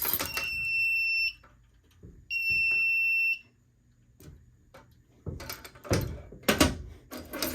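FireLite MS-2 fire alarm panel's trouble buzzer sounding a high, steady tone in two long beeps of about a second each, signalling a NAC fault, then falling silent as the trouble is acknowledged. Several clicks and knocks of handling follow in the last couple of seconds.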